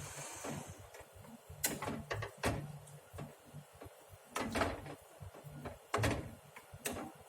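A cooking utensil knocking and scraping against a pan while stirring food, with sharp knocks spaced a second or so apart over a low steady hum.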